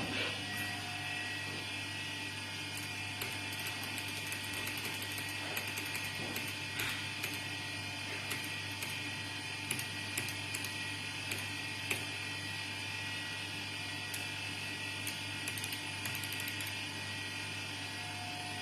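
Steady electrical hum and whine of a laser panel-repair machine running, with scattered light clicks throughout.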